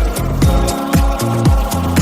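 Instrumental dance-pop with no vocals: a steady four-on-the-floor kick drum about twice a second, with hi-hats, a pulsing synth bass and held synth chords.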